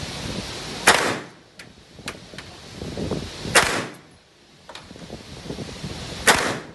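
Three gunshots about two and a half seconds apart, each with a short echoing tail, with fainter cracks of other shots between them.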